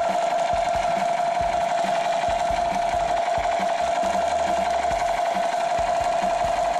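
A steady, rough buzzing tone, held without a break.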